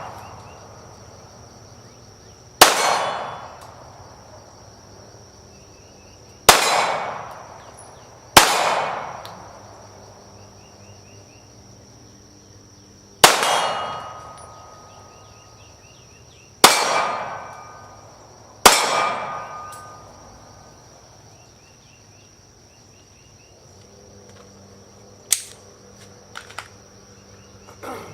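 Six gunshots fired at uneven intervals, each followed by a long fading echo, some with a faint ringing tone after them. Insects buzz steadily throughout, and a few light clicks come near the end.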